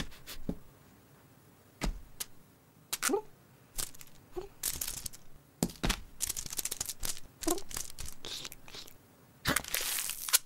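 Sticky tape being pulled off its dispenser roll and crinkling, in short ripping stretches among light taps. A few brief cat vocal sounds come in between.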